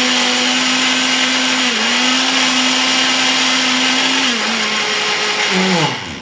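Electric mixer running steadily while beating oil into cake batter, its motor slowing a little partway through, then winding down in pitch and switching off near the end.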